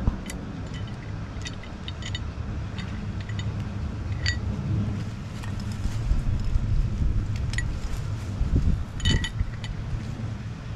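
Crane engine running steadily at a low idle, with sharp light metallic clinks scattered over it, two of them standing out about four and nine seconds in.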